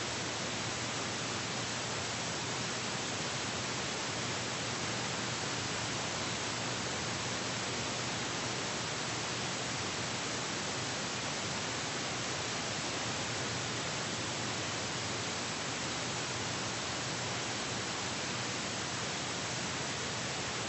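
Steady, unchanging hiss with nothing else in it: the noise floor of a silent newsreel's soundless track.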